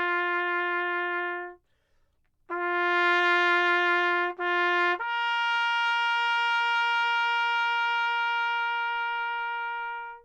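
A brass horn playing a slow call in long held notes. One note breaks off, then returns, repeats briefly and steps up to a higher note held for about five seconds, then cuts off abruptly.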